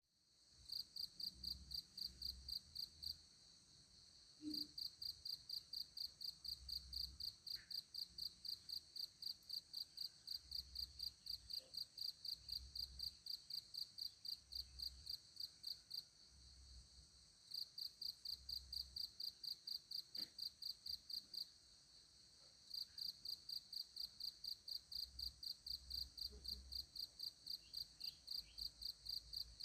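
High-pitched insect chirping, repeating about four times a second in long runs broken by short pauses.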